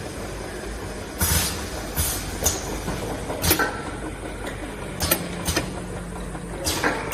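Automatic bottle filling and capping line running: a steady machine hum with irregular sharp clacks and brief hisses every half second to second and a half.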